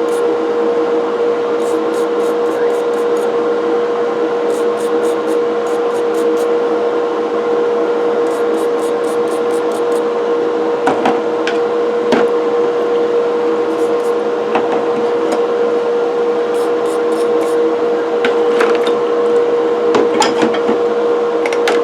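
A brush scrubbing metal coffee-grinder burrs in quick runs of short strokes, with now and then a sharp knock, over a steady hum.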